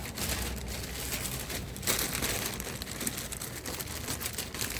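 Rustling and scraping handling noises, with a sharper knock about two seconds in, as an engine part is worked into place by hand.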